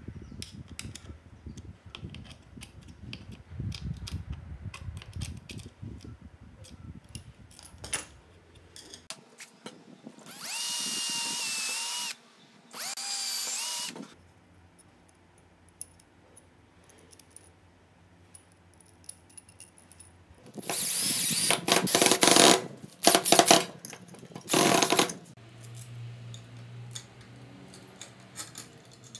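A cordless drill runs in short bursts: two steady whining runs of about two seconds each, then louder, harsher bursts near the end. Between the runs come small clicks of metal parts and screws being handled.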